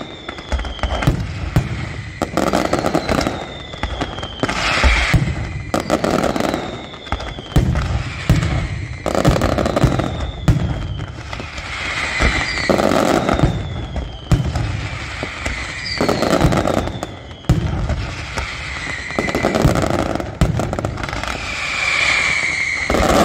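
Pirotecnia del Mediterraneo aerial fireworks going off in a steady stream, with sharp bursts about every one to two seconds. Repeated falling whistles and light crackle sound between the bursts.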